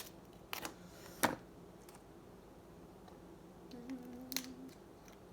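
Eating snow crab legs: a few sharp clicks and cracks of shell and mouth, the loudest a little over a second in, with a short low hum near four seconds in.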